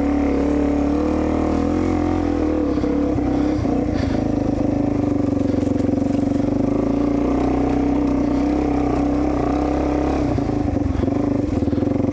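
Dirt bike engine running at a steady, moderate pace on a trail ride, its note holding nearly level with only small rises and dips.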